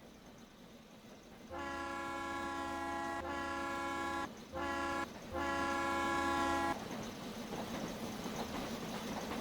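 Steam locomotive whistle blown in a long, long, short, long pattern, the standard grade-crossing signal. It is followed by a steady rushing rumble of the train.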